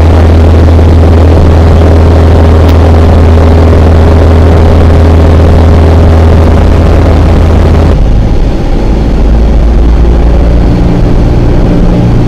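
Cessna 172 Skyhawk's engine and propeller droning steadily, heard loud inside the cabin. About two thirds of the way through the drone changes abruptly to a different, lower hum with less hiss.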